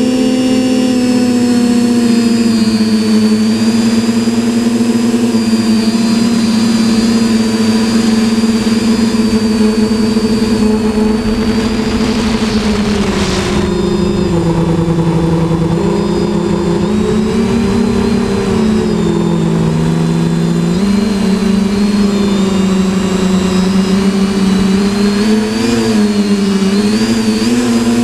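Electric motors and propellers of a TBS Discovery quadcopter, heard from its onboard camera, running with a steady hum-whine. The pitch holds for the first dozen seconds, then dips and wavers with throttle changes through the second half.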